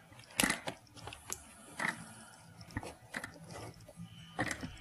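Light clicks and knocks of a pistol being handled and settled into a foam-lined hard case: about half a dozen separate taps spread across a few seconds.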